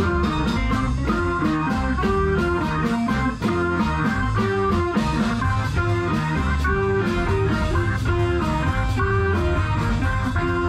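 Live band jam in a bluesy psychedelic-rock groove: a Les Paul-style electric guitar playing over a drum kit keeping a steady beat, with bass notes moving underneath.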